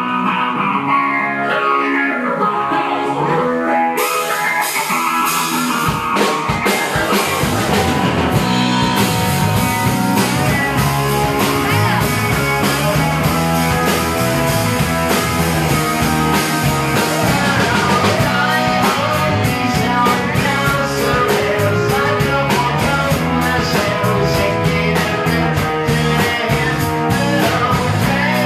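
Live rock band playing: a lone electric guitar bending notes, with drums and cymbals crashing in about four seconds in and bass joining soon after, then the full band plays on steadily.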